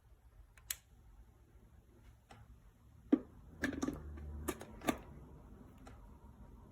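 A handful of small, sharp clicks and knocks in a quiet room, most of them bunched around the middle.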